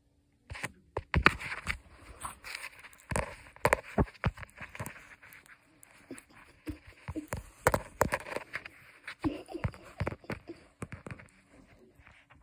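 Close-up handling noise as a kitten paws at, mouths and rubs against a phone: scratchy rustling of fur on the microphone with many sharp taps and knocks. The sounds come in irregular bursts and die down near the end.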